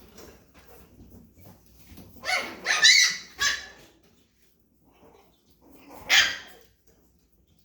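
Chihuahua puppies barking at play: a cluster of high-pitched yaps about two seconds in, then a single yap about six seconds in.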